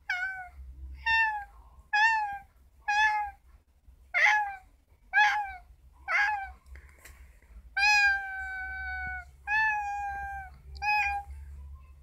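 Female orange tabby cat meowing over and over: seven short meows about a second apart, then two longer, drawn-out meows and a last short one, ten in all.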